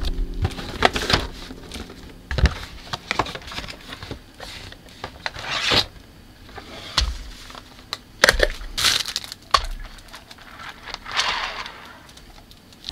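Hand work on a plastic scale model kit: irregular sharp clicks and small cracks, with several short rasping scrapes.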